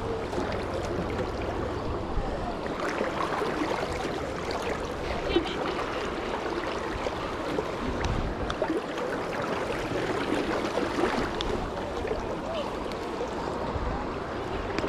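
Fast river current rushing and gurgling steadily around a wading angler, with a couple of brief sharper sounds about two and five seconds in.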